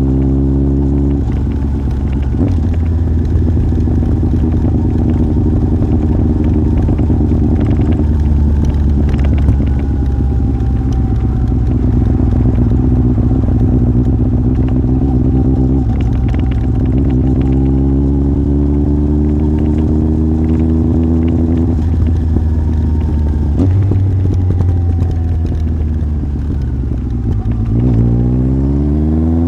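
Yamaha Fazer 1000's inline-four engine running through a MIVV aftermarket exhaust while riding. The engine note climbs as it accelerates, drops abruptly at gear changes, and rises quickly again near the end.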